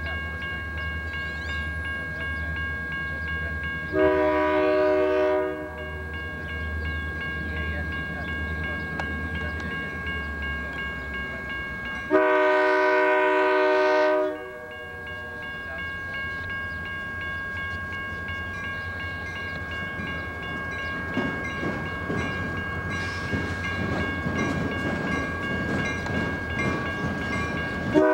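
Diesel freight locomotive approaching and sounding its multi-chime air horn: a blast of about a second and a half around four seconds in, a longer two-second blast around twelve seconds in, and a third starting at the very end. The rumble of the train's engines and wheels builds steadily over the last several seconds as it draws near.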